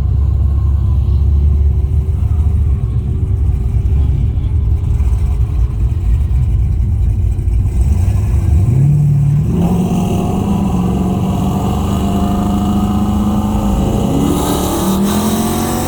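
Holden VX Commodore SS's LS1 V8 heard from inside the cabin: a steady low rumble while rolling, then about eight seconds in it goes to full throttle and the engine pitch climbs, dipping and climbing again near the end as it changes gear.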